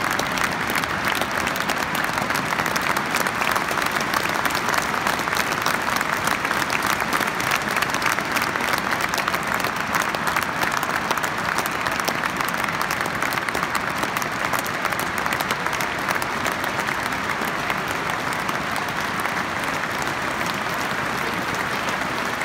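Football stadium crowd applauding steadily as a minute's applause: dense, continuous clapping from thousands of people with no let-up.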